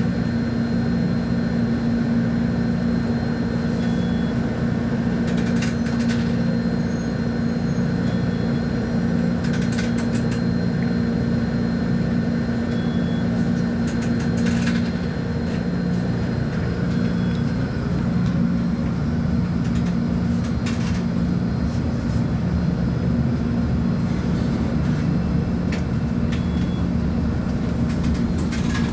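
Volvo B10M bus diesel engine, a straight-six, running at a steady pace in an articulated bus, with light rattles. A faint short high beep repeats about every four seconds.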